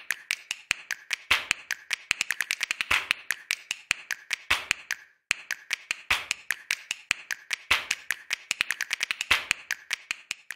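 A rapid, irregular string of sharp clicks or taps, many each second, with a brief break about five seconds in.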